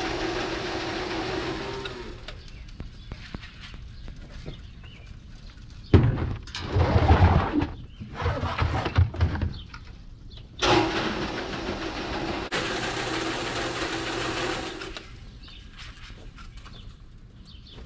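Calf feed of pellets and rolled corn rushing out of a feed bin's metal chute into a plastic bucket. It stops about two seconds in and pours again for about four seconds later on, with knocks and clatter of buckets being handled in between.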